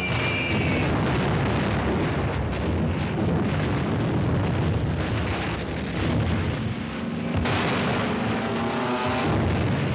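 Battle sound effects from a 1940s war-film soundtrack: a thick, continuous din of explosions and anti-aircraft gunfire mixed with aircraft engines. From about seven seconds in, a pitched engine drone slides up and down over the rumble.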